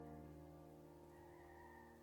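Faint intro music: a soft sustained chord that slowly fades.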